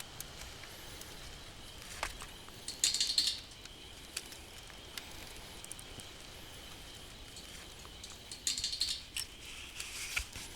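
Wood fire crackling over a faint steady hiss, with scattered sharp pops and clicks. Louder clusters of crackling come about three seconds in and again near nine seconds.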